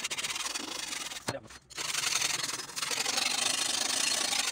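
Small steel scraper blade scraped back and forth along the steel blade of an old bill hook, a continuous rasping scrape that cleans the rusty surface. It breaks off briefly about a second in, then resumes louder.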